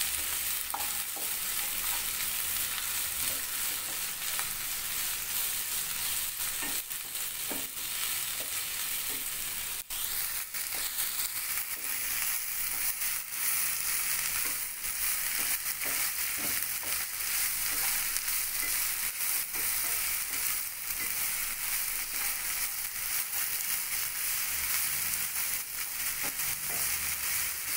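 Sliced onions sizzling steadily in hot oil in a non-stick pan as a wooden spatula stirs them, with a few brief scrapes and knocks against the pan. The onions are being sautéed and are just starting to wilt.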